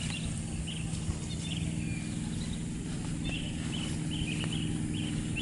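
Short high chirping calls from small animals, coming irregularly and more often in the second half, over a steady low hum.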